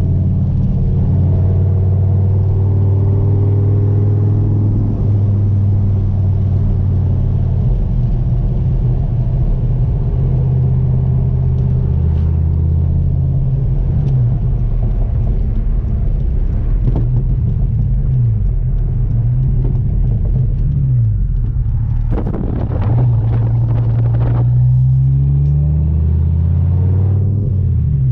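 Dodge Viper's V10 engine pulling the car along the road, a deep rumble whose pitch rises and falls several times as it goes up through the gears and eases off. Near the end a brief rush of noise rises over the engine.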